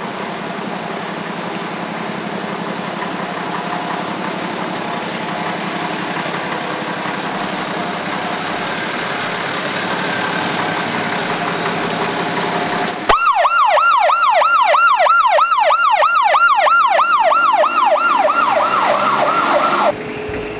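A steady noisy hum for about the first two thirds. Then an emergency-vehicle siren cuts in suddenly and is the loudest sound. It is a fast yelp of falling wails, about three or four a second, and it stops abruptly near the end.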